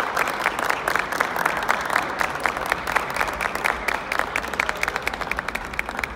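Courtside applause: kendo team members and spectators clapping their hands, a steady run of sharp claps, several a second.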